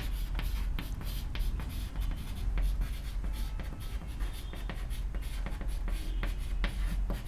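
Writing strokes scratching on a surface: a run of short, irregular scratches, over a steady low hum.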